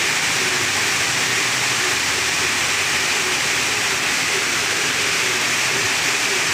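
Heavy rain pouring down, a steady, loud hiss.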